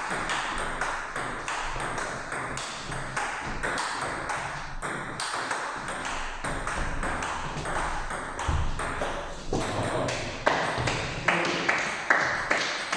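Table tennis rally: the plastic ball clicks sharply off the bats and the table in quick, uneven succession, several hits a second.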